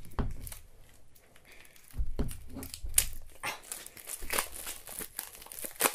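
Clear plastic shrink wrap crinkling and crackling as it is peeled off a Funko Soda can, in irregular small crackles with one sharper crackle near the end.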